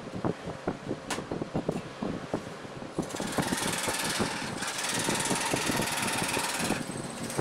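Homemade table scroll saw (jig saw) running, its blade clattering up and down; from about three seconds in it cuts through the wood sheet with a steady fast rasp, easing briefly near the end.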